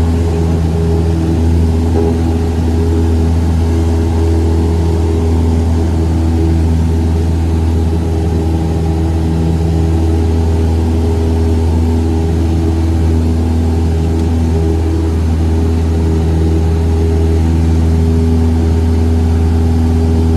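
Cessna 172 piston engine and propeller running at a constant, steady drone, with a strong low hum.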